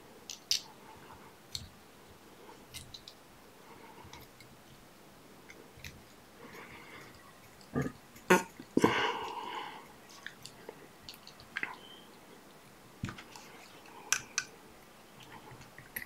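Small handling sounds of fly tying at a vise: scattered faint clicks and rustles from the tools, bobbin and silk thread, with a louder cluster of a few sharp knocks and a brief rustle about eight seconds in.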